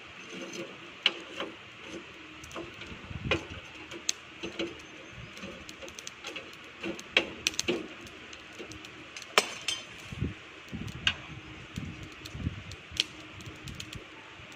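Irregular sharp metal clicks and clinks as tongs stir hot charcoal in a barbecue grill and a wire grill basket is handled, with a few soft low knocks about ten seconds in.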